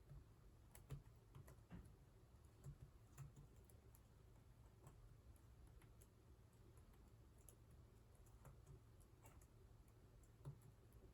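Faint computer keyboard keystrokes at an irregular pace, a beginner touch-typing, over a steady low hum.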